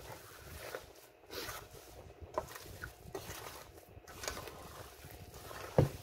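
Thick banana cake batter being stirred by hand in a stainless steel mixing bowl, the utensil scraping through the stiff batter in strokes about once a second, with one louder knock near the end.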